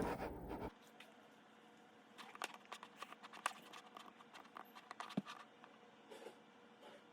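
A rush of noise cuts off abruptly just under a second in, leaving faint, irregular light clicks and taps.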